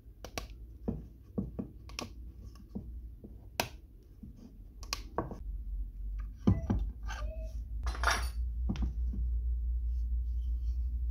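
Scattered sharp clicks and light metallic clinks as a steel shaft, hex nuts and ball bearing are handled and set against a plywood plate, busiest a little past the middle, over a low hum that grows louder in the second half.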